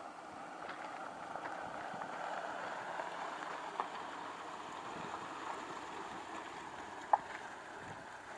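Dodge Durango SUV creeping past on a rough dirt and rock track. The noise of its engine and tyres grows as it passes close and eases off as it moves away, with scattered small clicks of gravel and stone under the tyres and one sharper click about seven seconds in.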